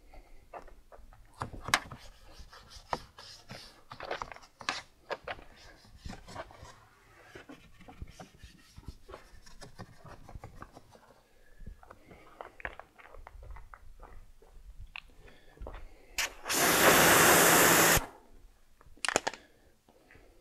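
Detailing brush scrubbing degreaser foam over engine-bay plastics and under the hood, an uneven run of scrapes, rubs and small clicks. Near the end a loud hiss of spray lasts about a second and a half.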